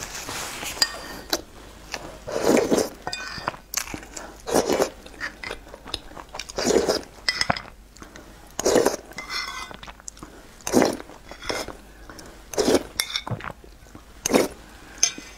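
Close-up eating sounds: spoonfuls of soft tofu in chili sauce taken into the mouth about every two seconds, with chewing between them and light clinks of a metal spoon against a ceramic bowl.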